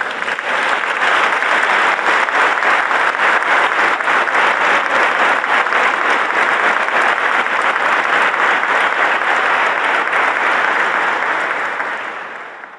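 A large congregation applauding: dense clapping from many hands, steady and loud, dying away near the end.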